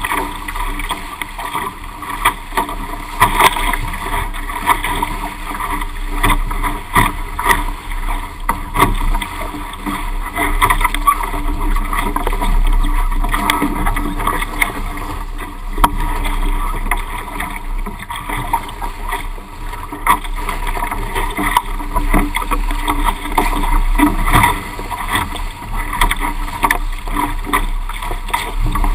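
Water rushing and splashing against the hull of a Weta trimaran sailing fast through chop, with irregular slaps of spray close to the camera. The sound comes muffled through a waterproof GoPro housing.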